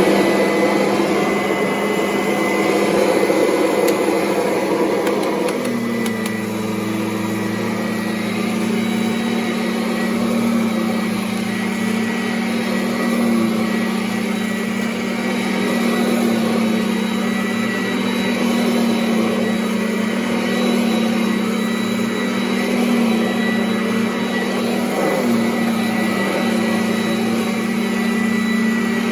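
Kirby upright vacuum cleaner, a Heritage II and Avalir mashup, running steadily while vacuuming carpet. Its hum grows deeper and fuller about six seconds in.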